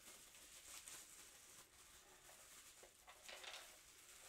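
Faint crinkling of plastic bubble wrap being handled, a little louder for a moment about three seconds in; otherwise near silence.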